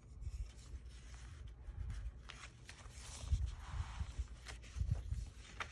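Paper and card being handled in a handmade junk journal: faint rustles and light taps as pages are turned and pressed flat, with a longer paper swish about three seconds in and low bumps on the table around three and five seconds in.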